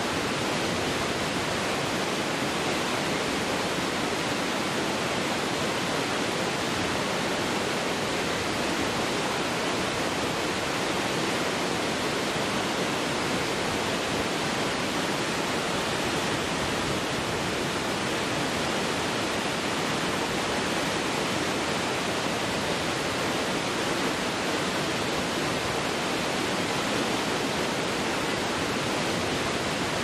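Waterfall: a steady rush of falling and splashing water, even throughout with no breaks or changes.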